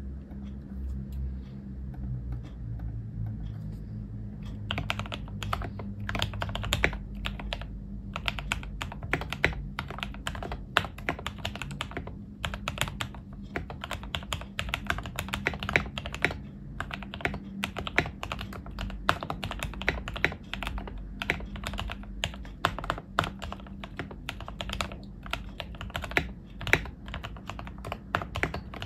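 Typing on a modified Obinslab Anne Pro 2 mechanical keyboard with lubed Gateron Red linear switches, a foam-padded case and tape mod: a steady run of irregular key clacks that begins about four and a half seconds in, over a low hum.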